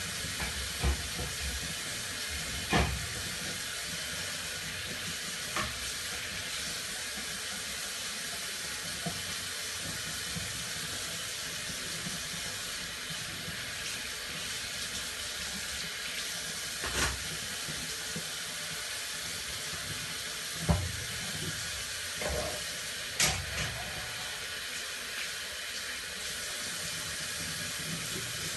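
Hand dishwashing at a sink: a steady rush of running water, with scattered short clinks and knocks of dishes now and then.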